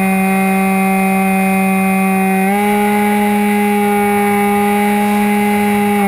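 Onboard sound of a modified SkyFly Max RC plane's motor and propeller: a steady droning whine. Its pitch steps up slightly about two and a half seconds in as the throttle is nudged up, with wind rumbling on the microphone underneath.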